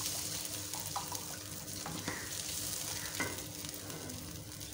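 Tomato purée sizzling in hot oil in a nonstick kadhai, a steady hiss, while a silicone spatula stirs it with a few soft scrapes against the pan. The stirring stops a little after three seconds in and the sizzle carries on.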